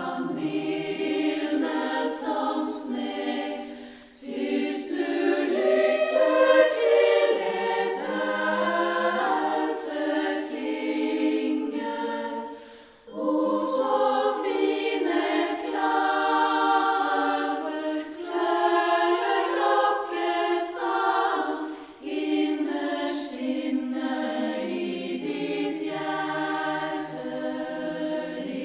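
Women's choir singing a cappella, the phrases breaking off briefly about 4, 13 and 22 seconds in.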